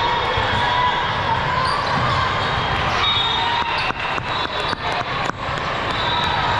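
Sports-hall hubbub of a volleyball tournament: a steady mix of distant voices and wavering sneaker squeaks, with a quick run of about eight sharp ball smacks, roughly four a second, in the middle.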